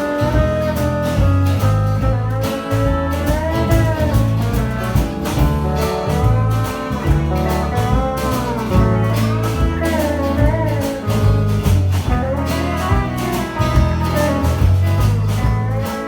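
Instrumental break of a country-blues band: a lead instrument plays a solo of bending, sliding notes over a steady guitar rhythm and bass.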